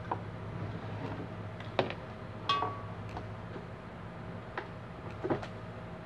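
Arno Silence Force fan's motor humming steadily while powered but not turning. The stalled motor points to a seized shaft bushing or a failed start capacitor, both of which the repairman suspects. A few light clicks and taps sound over the hum.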